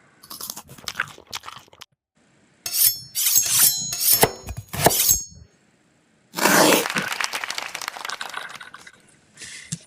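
Library sound effects of breaking and cracking, played one after another: a short run of cracks, then a louder cluster of shattering strokes with a high clinking ring, then a longer crunching crash that fades out.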